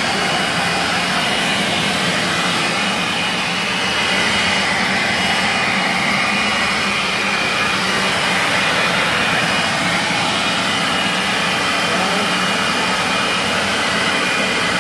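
Ruby 1050 W electric leaf blower-vacuum running steadily in vacuum (suction) mode: a continuous rush of air with a steady motor whine.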